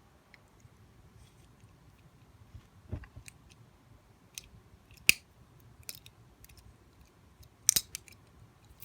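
Picking tools working inside a four-lever Squire 440 lever lock: scattered small metallic clicks and scrapes, with a dull knock about three seconds in, the loudest sharp click about five seconds in, and a quick double click near the end.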